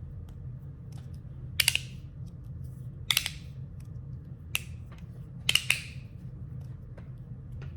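Titanium magnetic fidget slider being slid back and forth, giving sharp metal clacks as the plates snap to their stops, some in quick pairs, about one every second or so.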